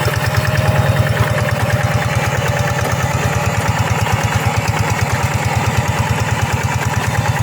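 Two-wheel hand tractor's single-cylinder diesel engine running at a steady speed, with an even, rapid chugging beat.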